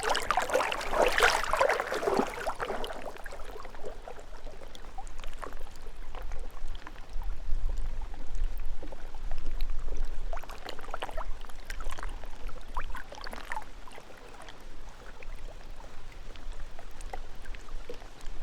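Gentle lake waves lapping and splashing against a rocky shore. The splashes are loudest in the first couple of seconds and come again around ten and thirteen seconds in, with a low rumble underneath.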